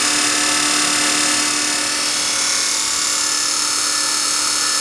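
Grisetti cylindrical grinder running at speed: a steady hum with a strong, even high hiss. It is a little noisy, which the owner puts down to a lack of lubrication and perhaps a worn belt.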